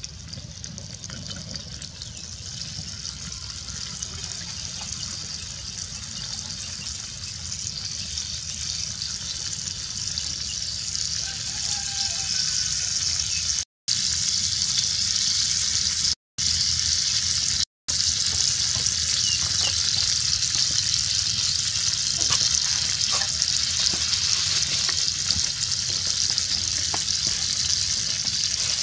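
Fish fillet frying in hot oil in a cast-iron pan: a steady sizzle that grows louder over the first half as the oil bubbles up, then holds, breaking off briefly three times near the middle.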